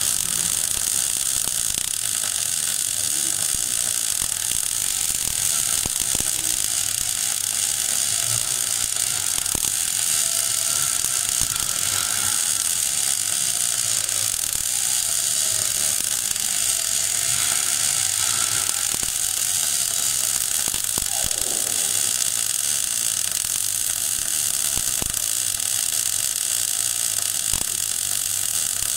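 MAG (MIG/gas metal arc) welding arc running without a break as a vertical-up pass is laid on steel plate: a steady, even crackling hiss.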